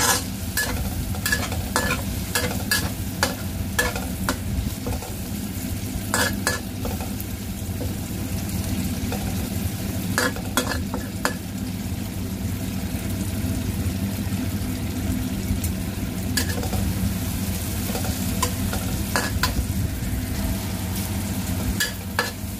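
Sliced chillies, shallots and garlic sizzling in oil in a honeycomb-surface stainless steel wok, stirred with a metal spatula that scrapes and clinks against the pan. The clinks come thick and fast over the first several seconds, thin out through the middle, and pick up again near the end.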